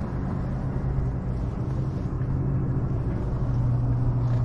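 A steady low mechanical hum with a rumble underneath, holding one pitch and growing a little louder in the second half.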